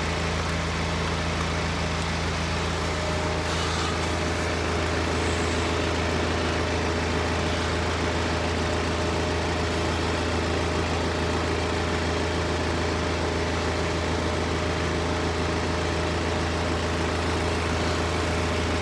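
Steady low mechanical hum that holds an even pitch and level throughout.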